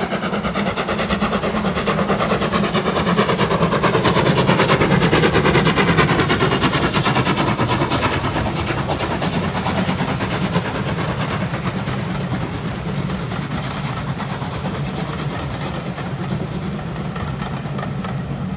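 Steam locomotive working hard as it passes, its exhaust beats chuffing rapidly and loudest a few seconds in, then the coaches rolling by on the rails as the sound slowly eases off.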